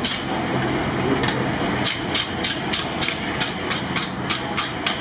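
Hammer blows on hot steel at an anvil while an axe head is forged: one strike, a pause of nearly two seconds, then a steady run of about three strikes a second. A steady low engine drone runs underneath.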